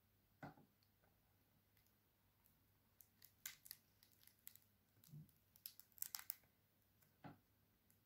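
Faint sounds of books being handled and moved on a table: a soft thump about half a second in, then a cluster of light paper rustles and clicks, and one more soft knock near the end.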